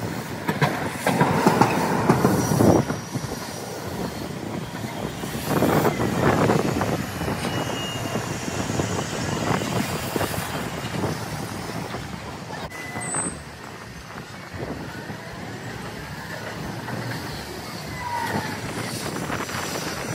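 Hiroshima Electric Railway streetcars running slowly on street track, steel wheels rumbling over the rails, loudest in two passages near the start, with a few brief high wheel squeals on the curved track.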